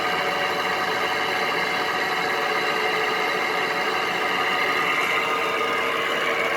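Frigidaire window air conditioner running steadily with its compressor and fan on while cooling: a constant hum made of several steady tones.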